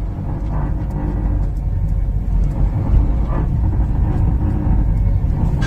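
Road rumble inside the cab of a Volkswagen Saveiro Cross on the move, with faint knocks and rattles from the worn suspension. The suspension has play in the strut mounts and creaking stabilizer links.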